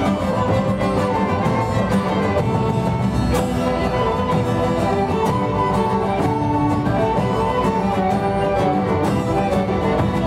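Early-music ensemble playing a lively piece: violins carrying the melody over acoustic guitar, wind instruments and cello, with hand drums keeping a steady beat.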